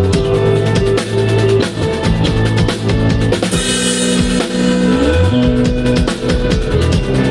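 A band playing through a sound check: a drum kit keeps a steady beat under held low bass notes that change pitch every second or so, with sustained chords above them. A cymbal washes out about three and a half seconds in.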